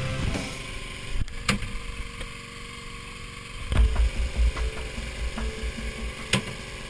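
Wind buffeting the microphone on an open boat deck in choppy water, in gusts that pick up about halfway through. A few sharp knocks of gear on the deck.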